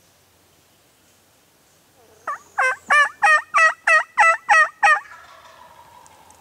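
A rapid series of about nine loud turkey yelps, about three a second, with a fading echo after.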